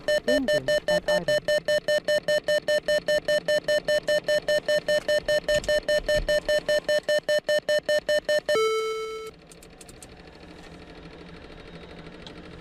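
Airbus EC135 cockpit audio warning beeping rapidly and steadily, about six beeps a second on one pitch. It stops about eight and a half seconds in and gives way to one short, lower tone, then a low electrical hum.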